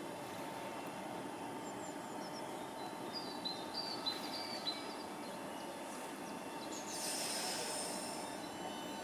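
Southeastern Class 465 Networker electric multiple unit rolling slowly along the platform: a steady low rumble with a faint steady hum, short high squeaks around the middle, and a brighter high-pitched hiss from about seven seconds in.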